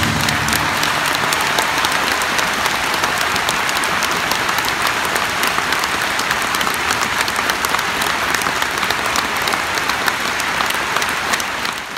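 Large concert audience applauding steadily, a dense clatter of many hands clapping; the orchestra's last notes die away right at the start, and the applause fades out at the very end.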